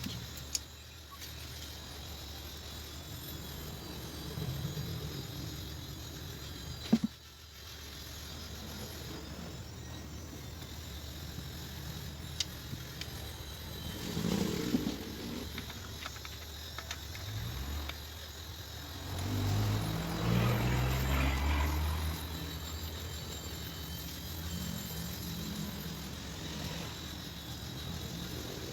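Low steady background hum with a motor vehicle running past, loudest after the middle, and a few sharp clicks of bike parts and tools being handled during the chain-guide fitting.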